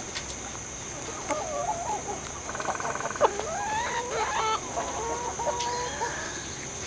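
Hens clucking: a run of short calls that rise and fall in pitch, starting about a second in, with a single sharp tap near the middle.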